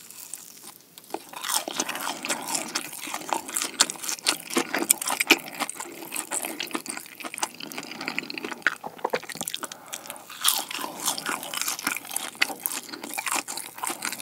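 Close-miked crunching and chewing of a crispy fried cheese stick with a seasoned bread-crumb coating: many small sharp crackles of the crust being bitten and chewed, starting about a second in.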